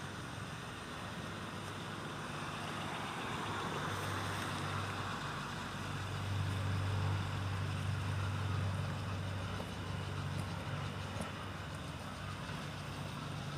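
A motor's steady low hum, growing louder for a few seconds in the middle and then easing off, over a broad rushing noise.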